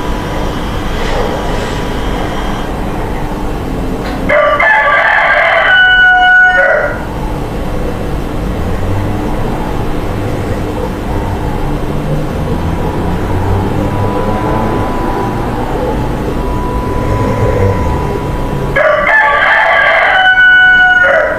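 Two loud, drawn-out animal calls about fourteen seconds apart, each lasting about two and a half seconds and ending on a held pitch, over a steady background hum.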